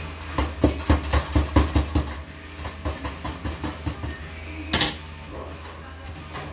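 Hammer tapping on galvanized sheet-metal ductwork: a quick run of sharp metallic knocks, about five or six a second, then lighter taps and one louder ringing strike near the five-second mark.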